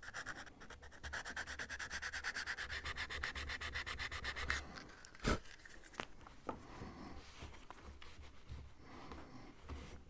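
A small piece of sandpaper rubbed by hand over the cut-off ends of wooden dowels, smoothing them flush: quick, even back-and-forth strokes for the first four and a half seconds, then a single knock, then softer, slower rubbing.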